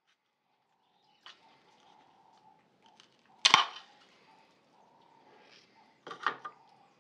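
Red oak boards being handled and set down on a wooden workbench. There are a few light knocks, one sharp clack about midway, and a couple of wood-on-wood knocks near the end as one board is laid on another.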